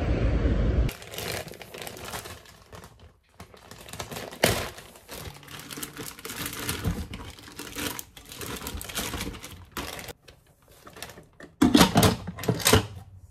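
A plastic zip bag crinkling and rustling as it is handled, with small clicks and knocks of kitchenware. The crinkling and clatter get louder near the end.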